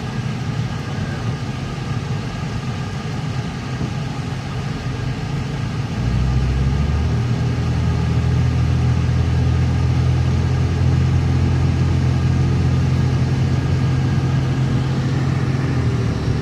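Car engine and road noise heard from inside the cabin while driving, a steady low hum that steps up louder about six seconds in.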